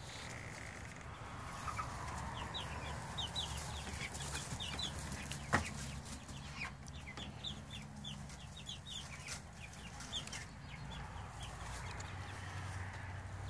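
Six- to seven-week-old chicks peeping in quick runs of short, high, falling chirps, with a single sharp knock about five and a half seconds in.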